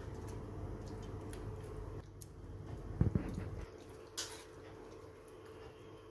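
A spoon working cooked fruit pulp in a stainless-steel mesh sieve, with a few sharp clicks of the spoon against the sieve and a dull thump about three seconds in.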